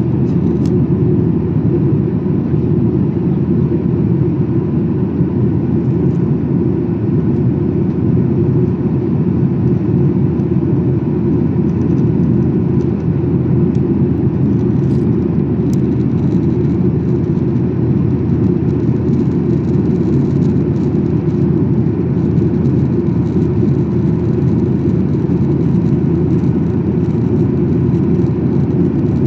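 Steady cabin noise of a Boeing 737-800 in flight, heard from inside the cabin: the CFM56-7B turbofans and rushing airflow make a constant deep rumble with a faint hiss above it.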